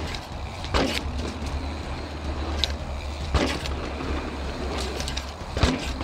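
Mountain bike ridden down a rough trail: a steady rumble of tyres and wind, broken by sharp knocks and clatter as the bike hits bumps, three of them standing out about a second in, midway and near the end.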